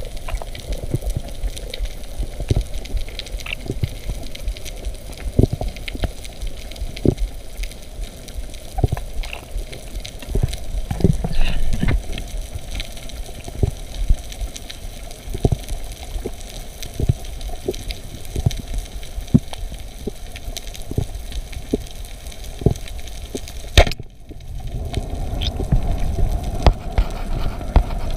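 Underwater sound picked up through a camera housing: irregular clicks and crackles over a low rumble. Near the end a single sharp snap as the speargun fires, followed by a lower rushing sound.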